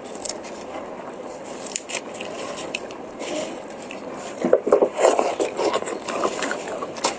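A marinated shrimp being peeled by hand in thin plastic gloves: scattered crackles, clicks and scrapes of the wet shell and the gloves, busiest just past the middle.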